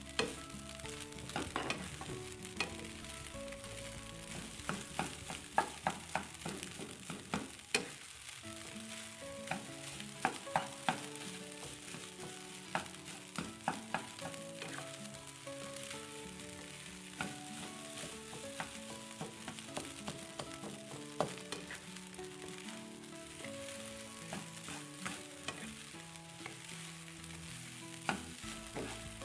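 Cooked rice stir-frying in a wok: a steady sizzle, with the spatula scraping and tapping against the pan many times as the rice is tossed.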